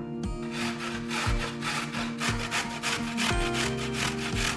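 Carrot being grated by hand on the fine side of a stainless steel box grater: quick, repeated scraping strokes starting about half a second in, over background music.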